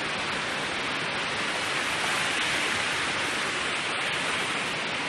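Rushing river water, a steady even hiss with no let-up.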